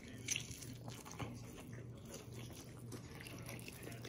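A person biting and chewing meat off a grilled Korean beef short rib (galbi): soft wet mouth smacks and small clicks, over a faint low hum that comes and goes.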